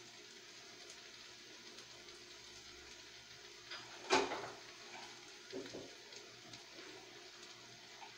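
Faint steady sizzle of onion and garlic frying in a wok. A single sharp knock with a short ring stands out about four seconds in, with a couple of softer clatters after it.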